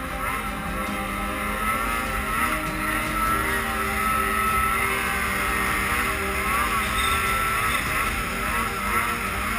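Polaris RMK Pro snowmobile's two-stroke engine running steadily as the sled rides along a trail, its note rising and falling a little with the throttle.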